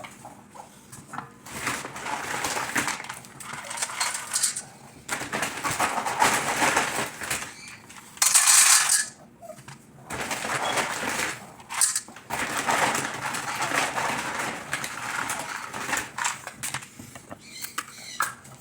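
Kitchen handling noises while pet food is made up: packaging rustling and small hard pieces and dishes clattering, in uneven bursts with sharp clicks and one loud hissy rush about two thirds of the way through.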